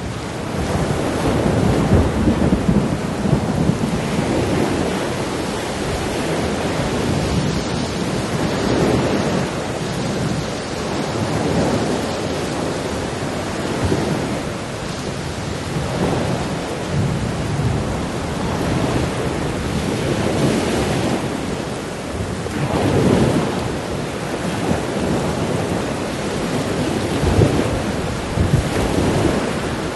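Steady heavy rain with low rumbles of thunder swelling and fading every few seconds.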